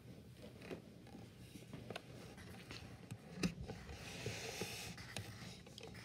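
Faint scratching of a graphite pencil writing letters on paper, clearest in the second half, with a few light knocks as the pencil and hand meet the clipboard.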